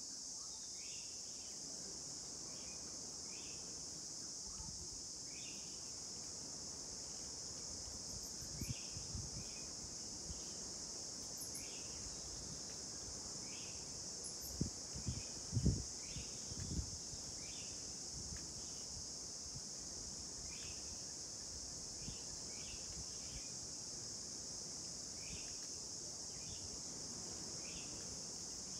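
Insects trilling in a steady high-pitched drone, with short, lower chirps repeating about once a second. A few dull low thumps come about halfway through.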